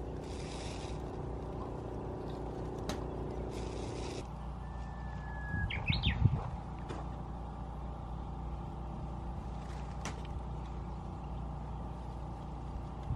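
Open-air ambience: a steady low engine-like hum and rumble, which changes pitch about four seconds in. A bird sings once about five seconds in: a long held whistled note, then a quick rising flourish of notes.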